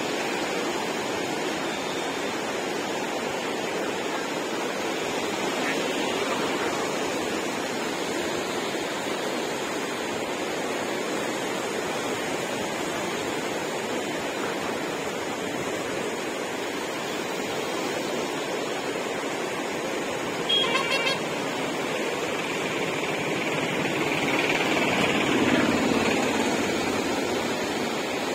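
Fast, turbulent floodwater of the Godavari river at full level, rushing with a steady roar. A short buzzing burst about twenty seconds in, and the rush swells for a few seconds soon after.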